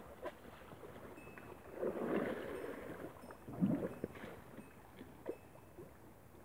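Elephant wading through a shallow river, water sloshing and splashing around its legs, with two louder surges about two seconds and three and a half seconds in.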